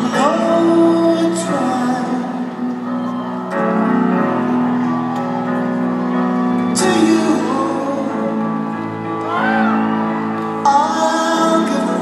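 A woman singing a slow, tender ballad to piano accompaniment, live, heard from the stands of a large arena.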